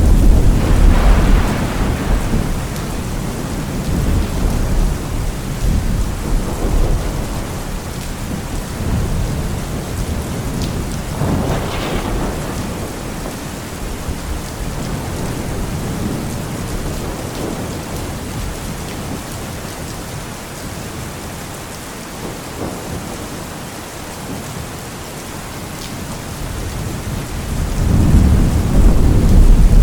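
Thunderstorm: steady rain with rolling thunder. A loud rumble at the start dies away over several seconds, a sharper clap comes about eleven seconds in, and another rumble builds near the end.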